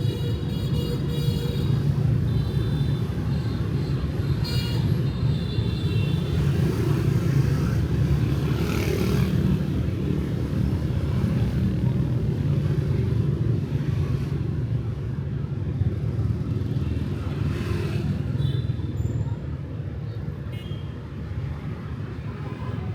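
Steady low rumble of light street traffic with motorbikes and cars, one vehicle passing close about nine seconds in. A few short high tones come through near the start, around five seconds in and near the end.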